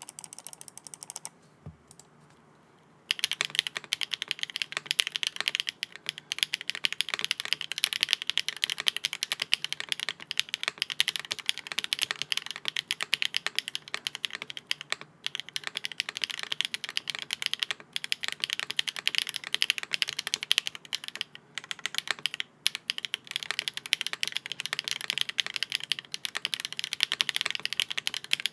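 Typing on a Hyacinth V2U mechanical keyboard with HMX switches in a polycarbonate plate with no foam, giving a clacky sound. A few keystrokes and a short pause, then fast continuous typing from about three seconds in.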